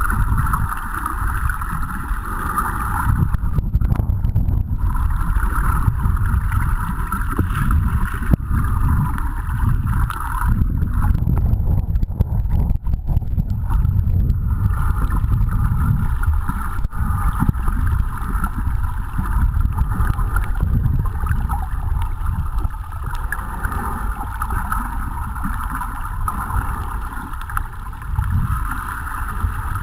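Water rumbling and sloshing around a camera held underwater, with a steady higher hiss that drops out briefly twice.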